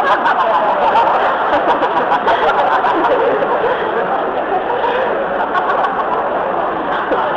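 An audience laughing and chattering together.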